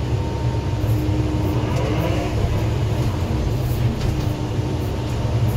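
A skid-steer loader's engine running steadily at working speed, a continuous low drone with a faint steady whine above it, heard from inside the operator's cage while it grades dirt.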